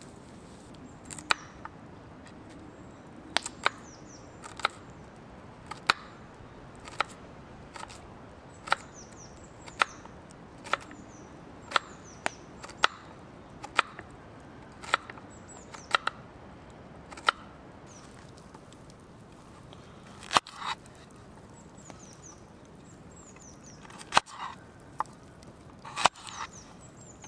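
Knife chopping vegetables on a cutting board: sharp, evenly paced chops about once a second, then a pause and a few scattered chops near the end.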